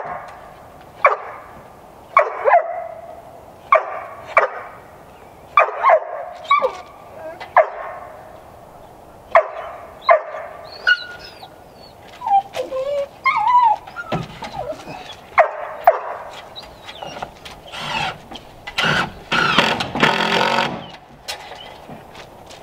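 Labrador barking repeatedly, about one bark a second, breaking into whining and whimpering with a wavering pitch partway through, then barking again. The dog is barking at its owner up the ladder to make him come down. Near the end a longer, noisier sound cuts across it.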